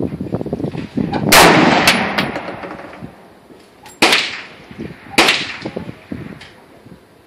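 M1 Garand .30-06 rifle shots: one loud shot about a second in with a long echo, then two quieter shots near the middle, about a second apart.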